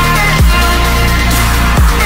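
Electronic music track with heavy bass and held synth tones, and two deep kick drum hits about a second and a half apart.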